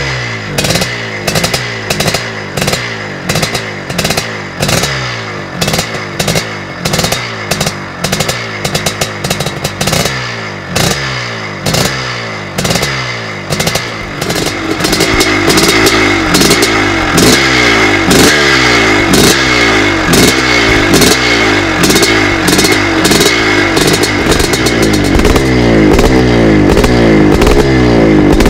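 1982 Husqvarna CR 430 two-stroke single-cylinder engine, just fired up, being revved in quick repeated throttle blips, about one or two a second. About halfway through it is held at higher revs and runs louder, with the revs still rising and falling.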